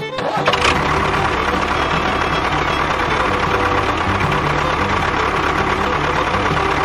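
Tractor engine idling steadily with a knocking beat, starting just after a short click.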